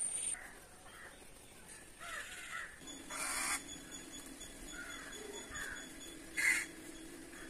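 Crow cawing twice, short harsh calls about three seconds apart, with faint chirping between them.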